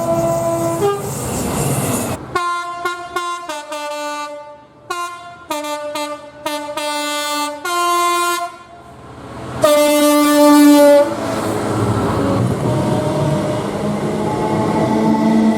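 Train horn sounded as a rapid series of short toots switching between two notes, then one long loud blast about ten seconds in. Train running noise fills the start and the end.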